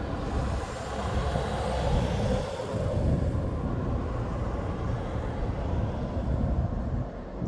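A train passing, a steady rumble with a hiss above it that thins out near the end.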